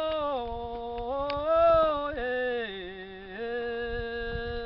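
A man's aboio, the wordless cattle-herding call of Brazil's northeastern vaqueiros, sung on long held vowel notes. The pitch steps up and down between sustained notes, swelling loudest a little under two seconds in, dropping low near the three-second mark, then rising again to a held note.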